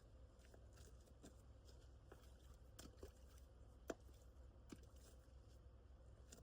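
Near silence with a low steady hum and a few faint, scattered clicks and crunches, the sharpest about four seconds in.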